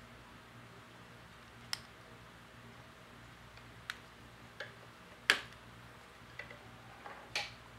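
Scattered sharp clicks and taps, about seven of them, from a hot glue gun and a CD being handled on a wooden tabletop, the loudest about five and a half seconds in, over a faint steady hum.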